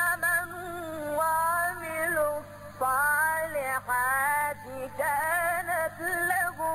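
A single voice chanting Quranic verses in the melodic tajwid style, with long held, wavering notes and brief breaks between phrases.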